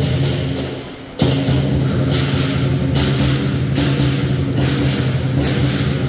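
Lion dance percussion ensemble: a big lion drum with clashing cymbals and a gong, the cymbal crashes falling roughly once a second. The music dips for a moment and comes back with a loud hit just over a second in.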